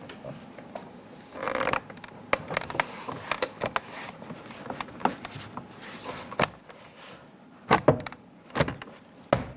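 Plastic interior door trim panel of a Dodge Ram being pressed and slid onto the rear door. It makes scattered clicks, a brief rustle, and a few louder knocks near the end as its retaining tabs seat.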